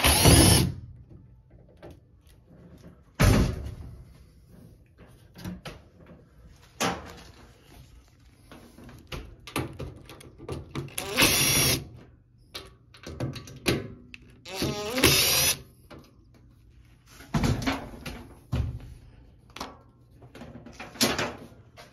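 Cordless drill-driver running in several short bursts as it backs out the screws holding the top-panel brackets of a front-load washing machine, with clicks and knocks of handling between the bursts.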